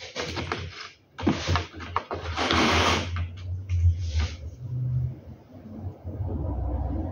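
Handling noise from blind parts and cord being worked by hand: a few short scraping, rustling sounds, the loudest about halfway through, followed by a low steady rumble.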